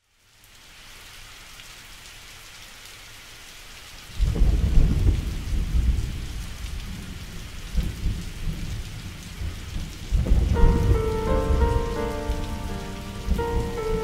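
Steady rain hiss fading in, with a deep thunder rumble about four seconds in and another about ten seconds in. Sustained pitched music notes enter with the second rumble.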